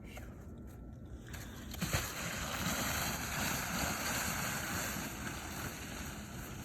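Sled sliding down a snowy slope: a thump about two seconds in, then a steady rushing hiss of the sled running over the snow.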